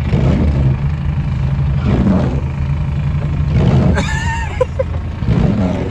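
Steady engine drone heard inside a following vehicle's cabin, mixed with the cammed 6.0-litre V8 of a Chevy Silverado drag truck revving as it spins its tires through deep snow. Louder surges come about two seconds in and again around four seconds in.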